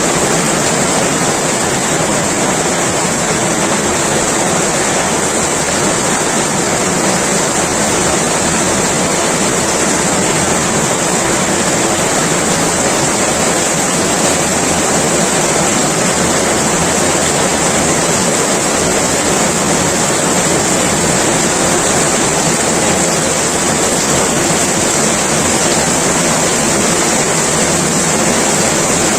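Heavy rain pouring down steadily, a loud, even hiss of falling water with no let-up.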